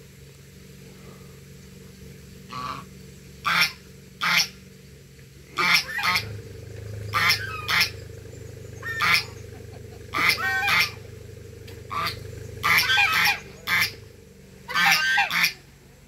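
White domestic geese honking: a string of short, loud honks that begins a few seconds in and comes more and more often toward the end.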